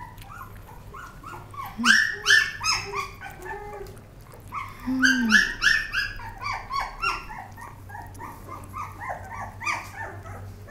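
Young puppies about 25 days old whining and yelping in rapid high-pitched squeals, coming in two dense flurries about two and five seconds in, with scattered whimpers between.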